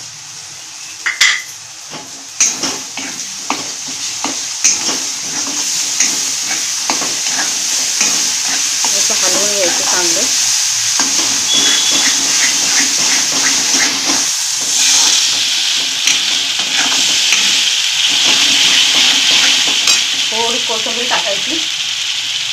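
Onion-coconut masala paste frying and sizzling in oil in a wok while a steel spatula stirs it in, scraping and knocking against the pan. The sizzle builds over the first few seconds and grows stronger about two-thirds of the way through as the masala is roasted.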